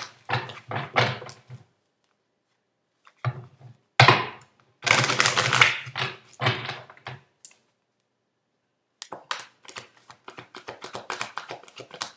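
Tarot cards shuffled by hand: a rapid run of light flicks and taps of card on card in the last three seconds. Short stretches of a low, indistinct voice come before it, in the first seven seconds.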